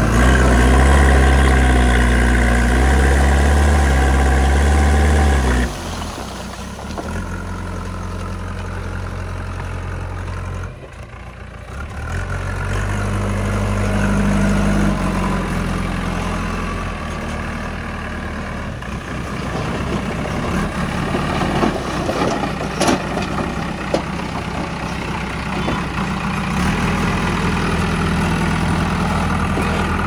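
JCB 3DX backhoe loader's diesel engine working under load as the front bucket scoops and lifts broken bricks and earth: loud and high for the first several seconds, then dropping suddenly, rising again briefly and settling to a steady run. A few sharp knocks come about two-thirds of the way through.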